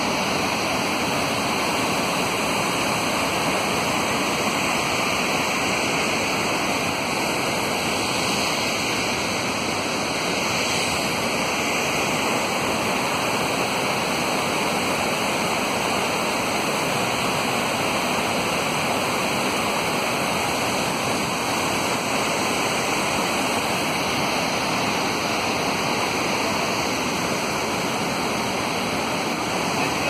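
A large waterfall plunging into its pool, with the river rushing below: a loud, steady, unbroken rush of falling water.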